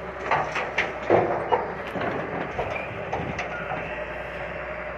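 A bucket load of soil and rubble dropping from an excavator into the steel bed of a tipper truck: a cluster of thuds and rattles in the first second and a half. The heavy machines' engines keep running steadily underneath.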